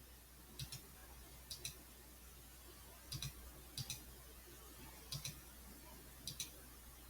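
Computer mouse clicking: six short clicks about a second apart, each a quick press-and-release pair, over a faint low hum.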